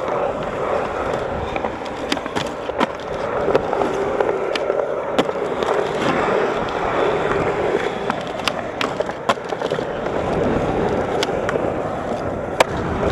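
Skateboard wheels rolling on a concrete skatepark, a steady roll with a dozen or so sharp clacks scattered through as the board's trucks and tail hit the concrete and its edges.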